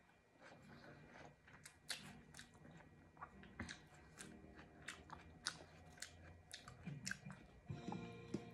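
Quiet close-up chewing of a battered fried onion ring, with irregular crisp crunches and wet mouth clicks.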